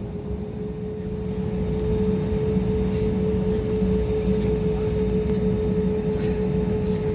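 Airliner cabin noise: a steady engine drone with a constant hum over a low rumble, heard from inside the plane.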